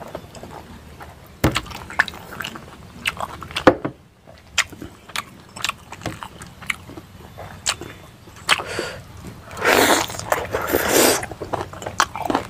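Close-up eating sounds of rice and pork curry eaten by hand: wet chewing and lip smacks, many sharp clicks and a couple of harder knocks in the first four seconds. Near the end come longer stretches of loud chewing.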